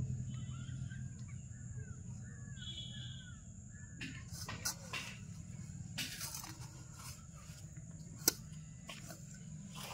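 A steel plate scraping and rustling through sand as a rhesus macaque scoops with it, in short scrapes from about four seconds in, with one sharp click a little after eight seconds. Faint bird chirps come in the first few seconds over a low steady hum.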